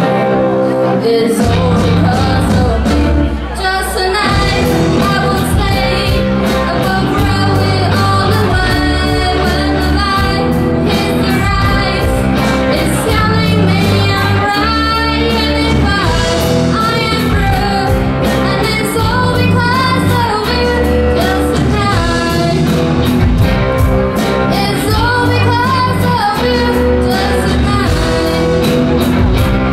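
A student rock band playing a song live, with a singer's vocal over a full band and a steady beat.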